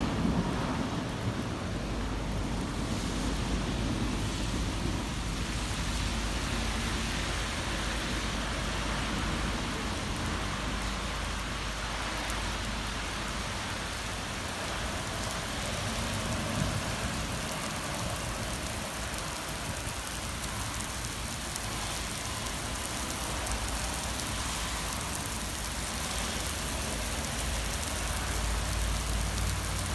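Steady rain falling on wet paving and a flooded road, with a low rumble underneath through the first dozen seconds and again near the end.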